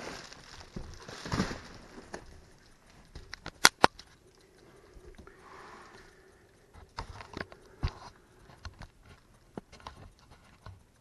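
Bubble wrap and packing material being handled and pulled apart: crinkling and scattered small clicks, with two sharp snaps a little under four seconds in.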